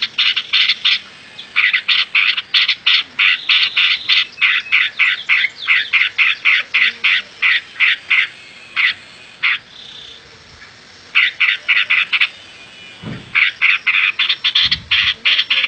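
Fast trains of short, rasping clicking calls from an animal, several a second, with brief pauses about a second in and around ten seconds in.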